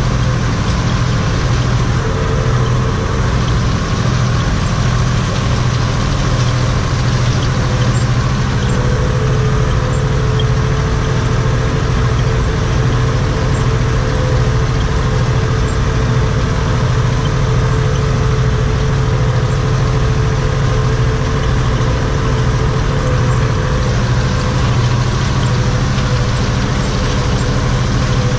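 Steyr 964 Turbo tractor's diesel engine running steadily, heard from inside the cab while it powers a rotary hay rake, with a steady whine over the engine drone.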